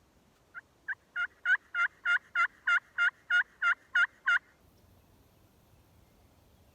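Hand-operated turkey call sounding a series of about thirteen hen yelps, about three a second, building in loudness over the first few notes, each yelp breaking down in pitch, used to call in a gobbler.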